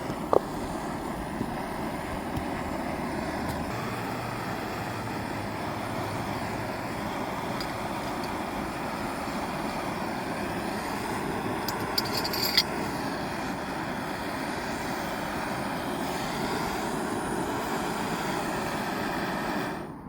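Gas camping stove burner running with a steady hiss, heating a pot. A sharp click comes just after the start, and a brief metallic clatter about twelve seconds in.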